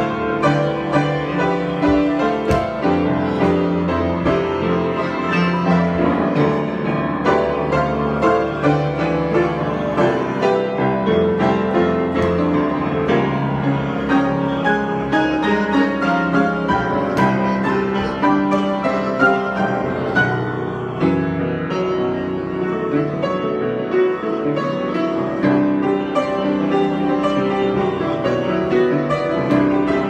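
Solo grand piano improvisation, played continuously with dense, overlapping chords and melody notes.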